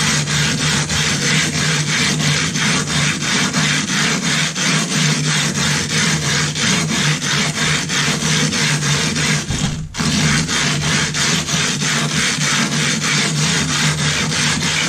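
Silicon carbide sharpening stone being lapped by hand on a glass plate with loose abrasive grit. It makes a gritty scraping that repeats about three times a second as the stone is rubbed round, with a brief break about ten seconds in. This is flattening the stone by grinding down its high spots.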